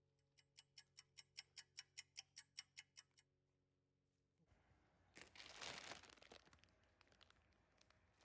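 Clock ticking, about five ticks a second for roughly three seconds, as a time-passing effect over the marinating chicken. From about four and a half seconds in, a plastic salad-kit bag crinkles as it is handled.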